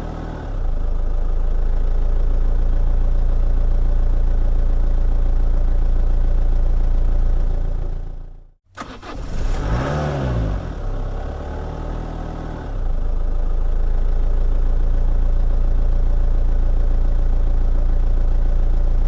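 Car engine running steadily, cutting off abruptly partway through. A second start-up follows: the engine catches with a short rev that rises and falls, runs more quietly for a couple of seconds, then steadies at a louder, even running sound.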